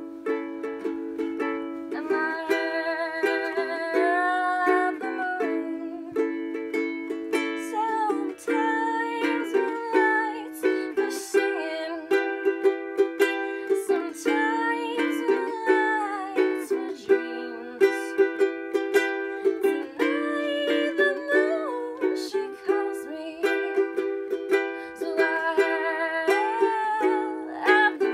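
Ukulele strummed in a steady rhythm, with a woman singing a wavering melody over the chords.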